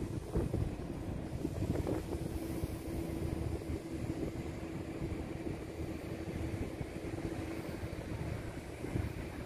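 Wind rumbling on the phone's microphone, with a steady low engine hum that stops about eight seconds in.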